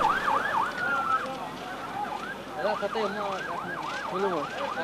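Several emergency-vehicle sirens going at once, each in a fast up-and-down yelp, overlapping out of step, with a brief steady tone from one of them about a second in.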